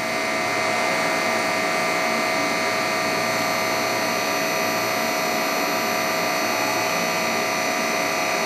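Container freight wagons rolling over the station tracks, a steady rolling noise from the wheels with several steady high tones over it.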